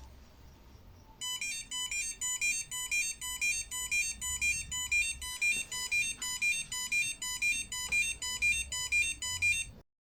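Electronic alarm from a DIY Arduino smoke detector's buzzer, beeping in a repeating tone pattern about twice a second. It starts about a second in and cuts off abruptly near the end.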